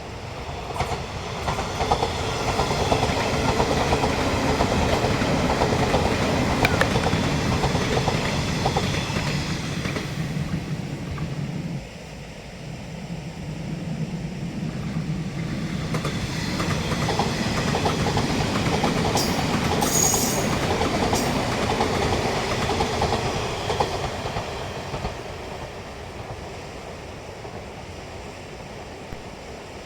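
381 series limited express Yakumo electric train running past, the noise building up and then cutting off abruptly about twelve seconds in. A second pass builds again, with a brief high squeal near its loudest point, and fades away near the end.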